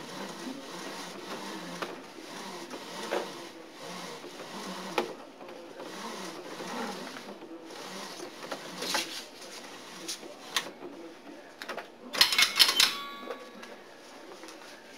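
Rope being pulled through a mechanical rope-length counter, its mechanism clicking and knocking irregularly. About twelve seconds in comes a loud burst of rapid clatter followed by a short metallic ring.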